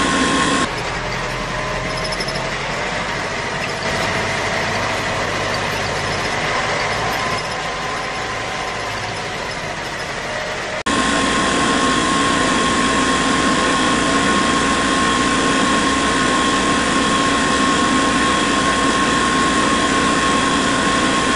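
Small DC electric motors running steadily with a whine and a held tone. The toy borewell drilling rig's motor spins its drill into wet soil; for a stretch of about ten seconds, starting about a second in, it gives way abruptly to a slightly quieter miniature water pump motor, then comes back just as suddenly.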